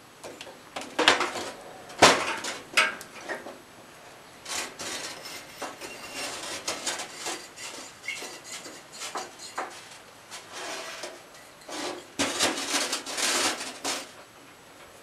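Tools and a soft insulating firebrick being handled on a steel work table: knocks as things are set down, the sharpest about two seconds in, and scraping as the brick is pushed across the tabletop.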